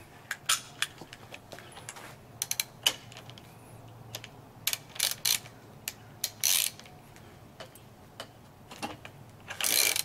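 Ratchet wrench with a 27 mm socket clicking in short, irregular runs, with separate clinks of metal on metal, as the socket is fitted to the suspension fork's top cap and the cap is backed off; the loudest run of clicks comes near the end.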